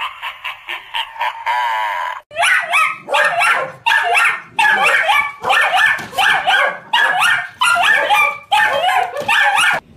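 A dog barking rapidly and repeatedly in about a dozen quick bursts, cutting off suddenly near the end. For about the first two seconds, before the barking, a different high, thin sound is heard.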